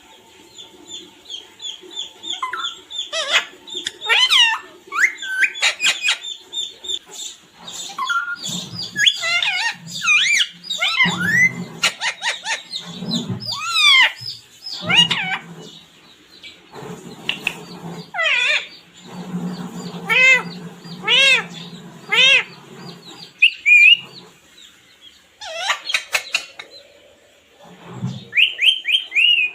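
Parrot chirping and whistling: a rapid, irregular string of short, sharp calls that rise and fall in pitch, with a few brief pauses.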